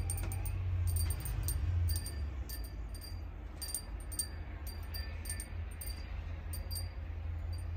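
Wind chimes tinkling in scattered, irregular high pings, over a steady low rumble of wind on the microphone.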